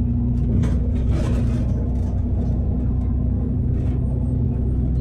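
Double-decker bus engine running steadily with road noise, heard from inside the passenger cabin. Its low drone is even throughout, with a brief hiss about a second in.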